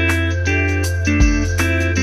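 Instrumental background music: a plucked guitar over a deep, steady bass line, with a low beat about a second in.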